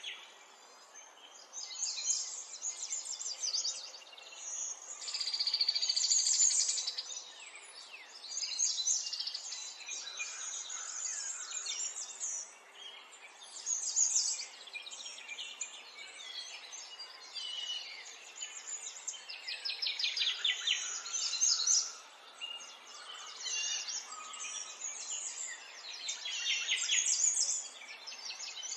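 High-pitched chirping and twittering calls in repeated bouts, many of them fast trills, with short lulls between bouts.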